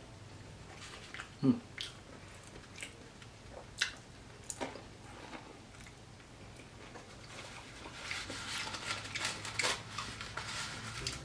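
Close-miked chewing of a crisp fried fruit pie, with scattered crunches and wet mouth clicks, one brief louder sound about a second and a half in, and a busier, crackly stretch of crunching near the end.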